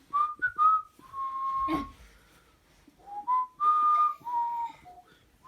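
A person whistling a short tune: a few quick notes, then one longer held note, then a falling run of notes near the end. A single knock sounds partway through.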